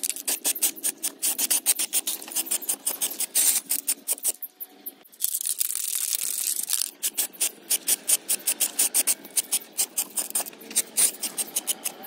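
Aerosol spray-paint can in use: a rapid run of short, sharp pulses, with one steady hiss of spray lasting about a second and a half, about five seconds in.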